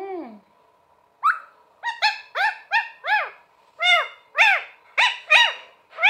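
Rose-ringed parakeet (Indian ringneck) giving a quick series of short, rising-then-falling calls, about a dozen of them with a short pause midway.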